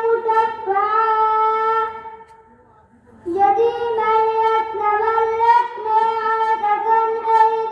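A boy's high voice chanting into a microphone in long, steady held notes, broken by a pause for breath from about two seconds in to just past three seconds before the next phrase.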